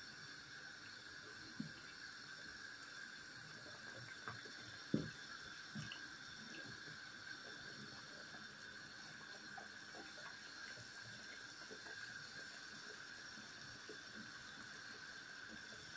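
Pot of soup simmering: a faint steady hiss with scattered small bubbling pops and an occasional soft knock.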